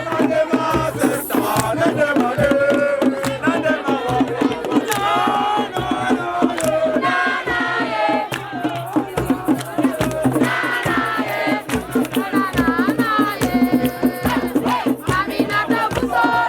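Voices singing over fast percussion with a rattling, shaken sound, in a folk style, with a steady low hum underneath.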